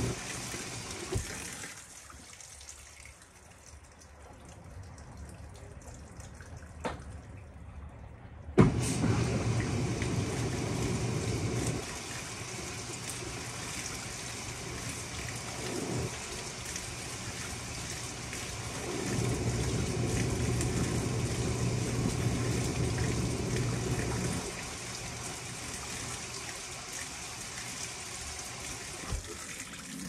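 Panasonic top-loading washing machine mid-wash: water pours into the tub from the top while the pulsator motor hums in stretches, churning the clothes. A sharp clunk about eight and a half seconds in, as the motor starts again, is the loudest moment.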